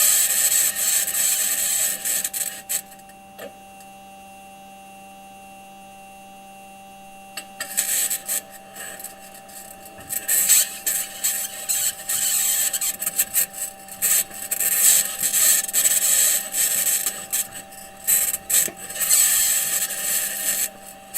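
Perseverance rover's metal wheels rolling over Mars rock, scraping, squeaking and clanking over a steady hum. The clatter drops out from about three to seven seconds in, leaving only the quieter hum, then starts again.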